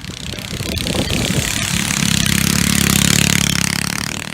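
Predator 212 single-cylinder four-stroke small engine running under throttle, growing steadily louder, its note steadying into a held pitch about two seconds in.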